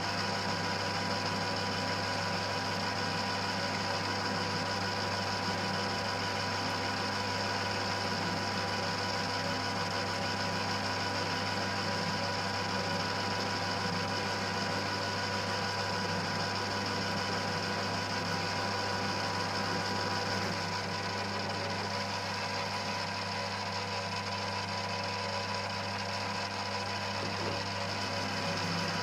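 1940s Colchester lathe running steadily, its gearbox and spindle giving a constant mechanical whirr with a low hum, the spindle's tapered bronze bushings fed by a drip oiler. The sound drops a little about twenty seconds in.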